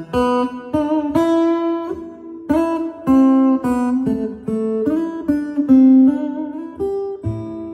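Acoustic guitar music played back through an Electro-Voice Everse 12 portable speaker during a sound test: single plucked notes, a couple of them bent in pitch.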